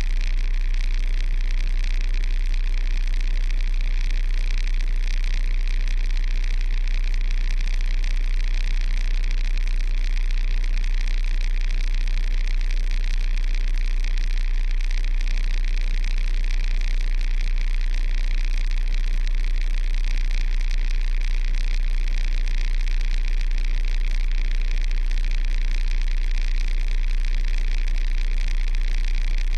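Kenworth truck's diesel engine idling, heard through a cab-mounted camera as a steady deep drone with a hiss above it, no change in pace.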